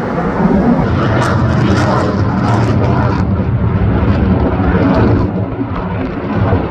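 Jet noise of a Saab Gripen fighter in flight: a loud, steady rumble, with a ragged crackle for a couple of seconds about a second in.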